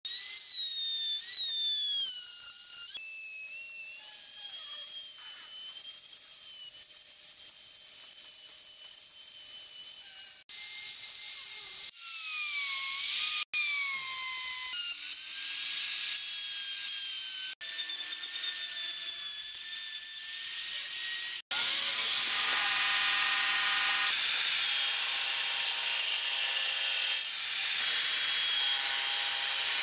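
Electric trim router running at high speed and cutting into pine, its high whine dipping and rising in pitch as the bit loads in the wood, broken off abruptly several times. From about two-thirds in, a steadier machine sound with sawing noise, which fits a table saw running.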